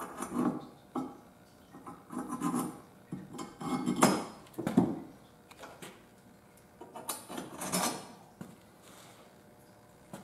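Loose steel hardware clinking and knocking against a metal tree-stand rail bracket as washers and nuts are fitted onto bolts by hand. Irregular taps and rattles, the loudest knocks about four to five seconds in and again near eight seconds.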